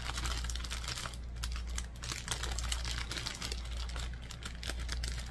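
Clear plastic bag of packaged diamond-painting resin drills being handled and turned over in the hands, giving a run of small irregular clicks and crinkles as the bagged drills shift against each other.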